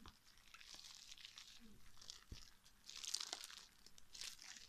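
Puffy slime being stirred and worked, giving faint sticky crackles and squelches in a few short bursts, the loudest about three seconds in.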